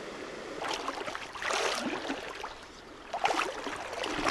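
River water running, with several surges of sloshing water about a second apart.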